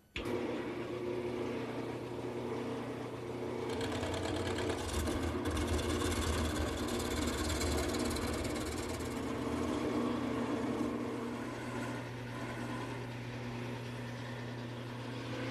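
Wood lathe switched on and running with a steady motor hum, then a gouge cutting into the spinning hickory blank from about four seconds in, a continuous rough cutting noise as the blank is roughed out round.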